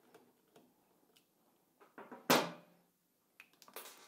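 Small clicks of a T-handle hex key working a battery terminal screw, then a sharp knock just over two seconds in as the metal key is set down on the floor, and a shorter clatter near the end as the battery cables are handled.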